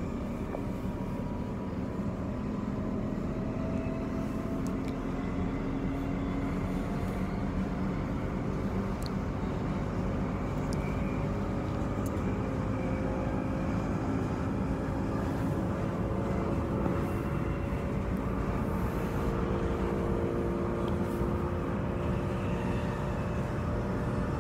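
Interior running noise of a Transperth B-series electric multiple unit (Bombardier/Downer) at speed: a steady rumble of wheels on rails with faint whining tones from the traction drive that drift slowly upward.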